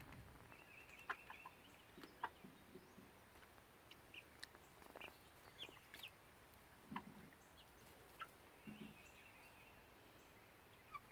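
Hens clucking softly and giving short, scattered peeps, all faint, with a few light clicks in between.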